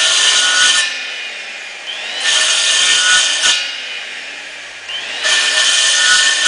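Circular saw notching a wooden ceiling slat: three short cuts, each with the motor spinning up with a rising whine, a harsh cutting burst of about a second, then the motor coasting down.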